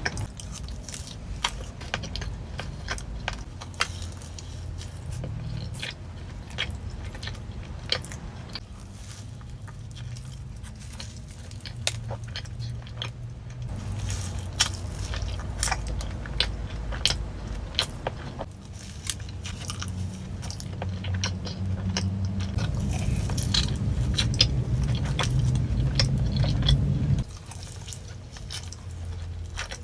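Close-miked eating of donuts: biting and chewing, with many wet mouth clicks and soft crunches. Under it runs a low hum that shifts abruptly several times.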